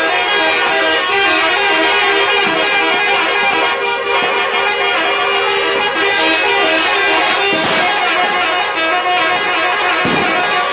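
Bus 'telolet' horn, a multi-trumpet air horn, playing a loud, continuous melody of steady tones that change note every so often.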